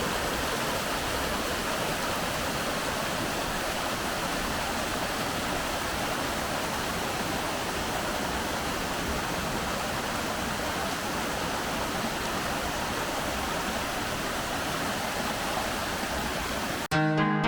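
Steady rushing of a tall plunge waterfall, about 60 m high, falling into its basin. The water sound cuts off abruptly near the end and music with plucked notes takes over.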